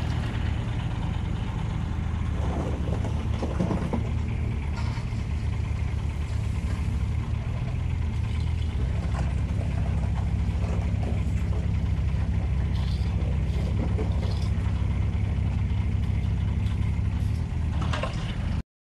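Diesel engines of a Kubota mini excavator and a Wacker Neuson site dumper running steadily close by, with a few knocks and rattles about three seconds in.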